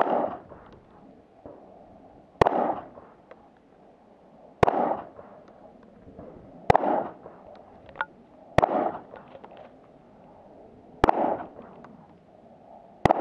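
Glock 19 9mm pistol fired seven times in slow, deliberate single shots about two seconds apart. Each sharp crack is followed by a short echo.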